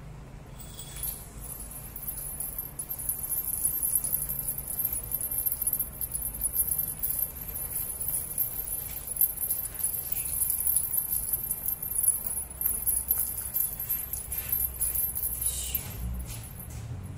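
A small jingle bell on a feather wand toy jingles on and off as the toy is dangled and swung for a cat.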